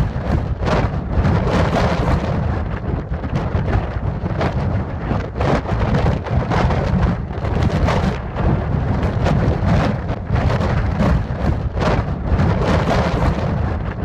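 Gale-force wind buffeting the microphone: a loud, continuous rumble with rapid gusts, strong enough to blow the waterfall's spray back up the cliff.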